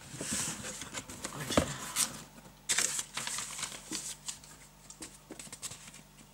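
Cardboard shipping box being opened by hand: the flaps pulled back and the paper inside rustled and crinkled, with a dull thump about a second and a half in.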